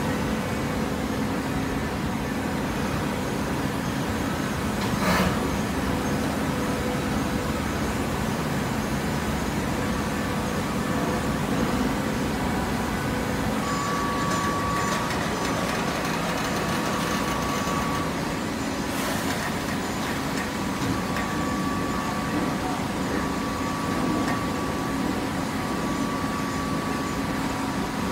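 Steady mechanical hum of a vertical cardboard baler's motor and hydraulic pump running. A higher whine comes and goes, and there are two sharp knocks.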